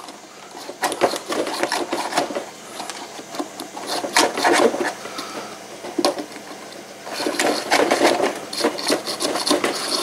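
Thin mechanics wire scraping and rubbing in uneven spells as it is pushed through the clogged water tube of a coffee maker's heating element, with a few light clicks. The clog stops the coffee maker from filling.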